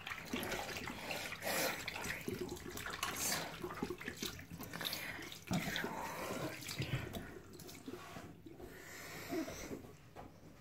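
Water from a tap running into a bathroom sink as hands are rinsed under it, splashing unevenly, growing quieter near the end.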